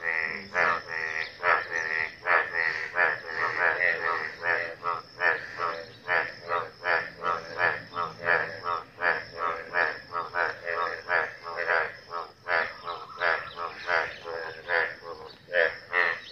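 A chorus of frogs croaking in standing rainwater after rain: many overlapping calls, about three or four a second, with no let-up.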